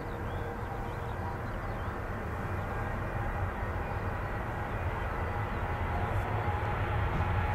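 Jet engines of a Boeing 787 at takeoff thrust during its takeoff roll: a steady rumble that grows gradually louder as the airliner accelerates down the runway.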